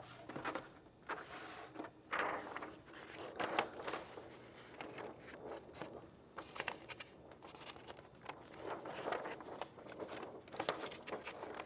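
Irregular handling noise: scattered soft clicks, knocks and rustles.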